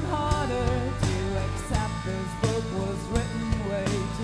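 Live band music: electric guitars, bass and drum kit playing a steady beat, with a bending melodic line near the start.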